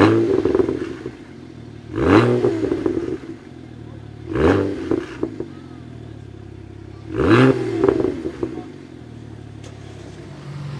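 Tuned BMW 1M's twin-turbo inline-six revved in four short throttle blips, two to three seconds apart, settling back to idle between them. Each rev rises quickly and falls away with crackles and pops from the exhaust.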